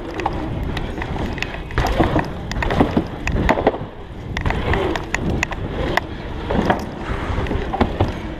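Mountain bike ridden fast over wooden ramps and a concrete track: tyres rolling with a steady rumble, broken by frequent sharp knocks and rattles as the bike hits the boards and transitions.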